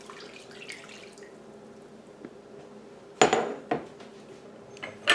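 Water trickling from a glass measuring cup into a slow cooker for about the first second. About three seconds in, a sharp clink with a short ring, as of the glass cup being set down on a hard surface, then a softer knock, and a few more knocks near the end.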